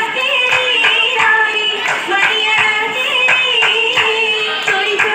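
Oppana: female voices singing a Mappila song in a sustained, wavering melody, with sharp hand-claps in a steady rhythm of about two to three a second.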